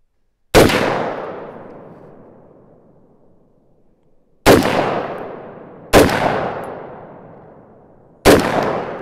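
Sig Sauer MCX Virtus pistol firing four single shots with an ASR blast shield fitted over its flash hider. Each shot rings out in a long echoing tail. The first shot comes about half a second in, and three more follow between about four and a half and eight seconds, a second and a half to two seconds apart.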